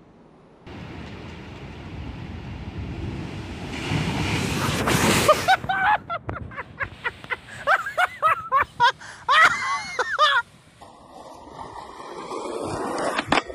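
A rushing noise builds for about five seconds. Then comes a quick run of sharp knocks mixed with short, pitched cries. Near the end, skateboard wheels roll steadily on concrete.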